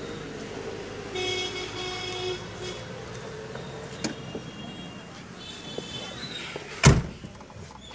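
A vehicle horn sounds for about a second over steady street traffic noise, and again more faintly later. Near the end a car door slams shut, the loudest sound.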